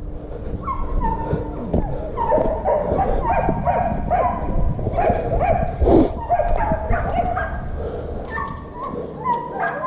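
A young dog yelping and whining over and over in short, high-pitched calls, the excited cries of a dog eager to chase the lure.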